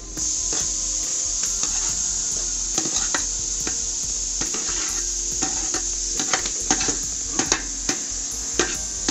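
Steady sizzling from a large pot of hot frying masala as chopped tomatoes drop in, with a perforated steel skimmer repeatedly scraping and clicking against a steel plate.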